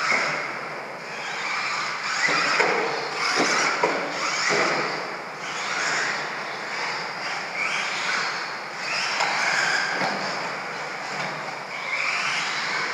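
Radio-controlled stadium trucks running on a dirt track: whining motors and drivetrains rise and fall in pitch as they accelerate and brake. Several sharp knocks come from landings and hits, most of them in the first half.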